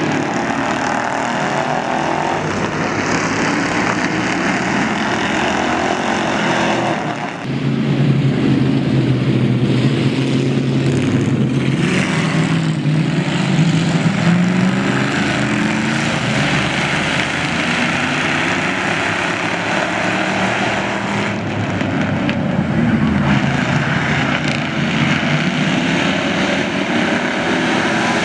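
Ford Crown Victoria race cars' V8 engines running hard around an oval track, the engine notes rising and falling as the cars pass and the pack comes through. The sound dips briefly about seven seconds in, then comes back fuller as more cars go by.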